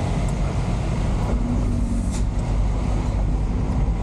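Truck engine running at low speed, heard from inside the cab as a steady low drone, with a couple of brief rattles as the truck rolls over a rough street.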